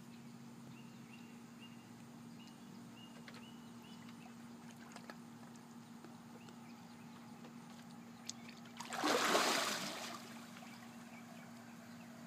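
A golden retriever lunging from the shallows into lake water onto a catfish: one loud splash about nine seconds in, lasting about a second. Before it, only a faint steady background with a few soft high chirps.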